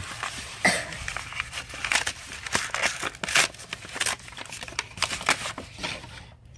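Brown kraft packing paper crinkling and tearing as an item is unwrapped by hand: a run of irregular crackles and rustles that dies down about six seconds in.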